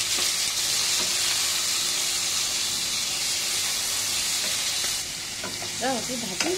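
Sliced onions sizzling in hot oil in a frying pan, stirred with a spatula with occasional light scrapes. The sizzle eases a little about five seconds in.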